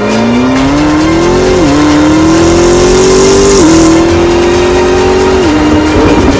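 McLaren 650S twin-turbo V8 through an Fi Exhaust valvetronic exhaust, accelerating hard. The engine note climbs and drops sharply at three quick upshifts, about two seconds apart.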